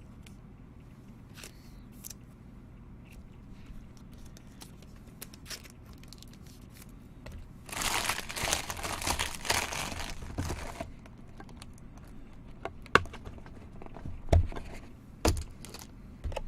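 A plastic trading-card pack wrapper being torn open and crumpled, a dense three-second crinkling burst about halfway through. A few sharp knocks follow near the end, like cards or packaging set down on a table.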